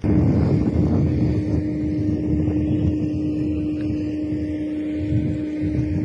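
Low, steady rumble of a moving vehicle with a constant hum, mixed with wind noise on the microphone.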